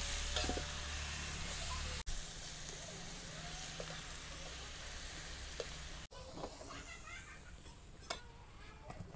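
Taro stems and greens stir-frying in a hot steel wok, sizzling steadily as a metal spatula stirs them. The sizzle drops after about six seconds.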